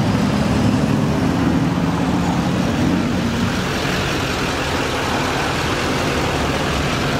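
Pickup truck engine idling steadily, a low even rumble under general outdoor noise.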